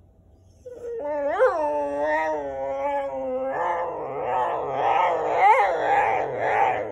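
A whippet roo-ing: one long, drawn-out complaining howl that starts clear, wavering up and down in pitch, and turns rough and strained about halfway through before cutting off.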